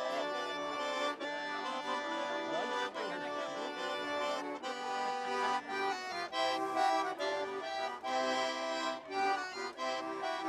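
Accordion playing a traditional tune, melody and chords in steady held notes that change in a regular rhythm.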